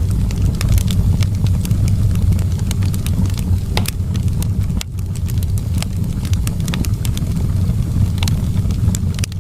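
Wood fire burning in a fireplace: a steady low rumble of flames with irregular sharp crackles and pops from the burning wood.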